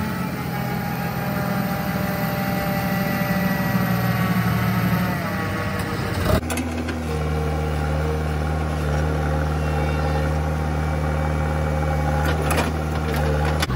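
Heavy diesel engines of a JCB 3DX backhoe loader and an Ashok Leyland tipper truck running steadily. The sound changes abruptly about six seconds in, then the backhoe's engine runs on steadily, with a few clatters near the end as soil drops from the backhoe bucket.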